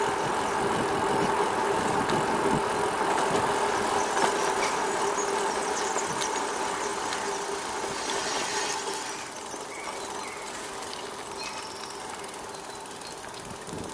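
Steady hum of a motor vehicle's engine, dropping away noticeably about nine seconds in.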